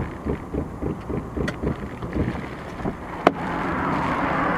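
Inside a moving car: engine and road noise with buffeting wind. A single sharp click a little over three seconds in, after which a rushing noise grows steadily louder.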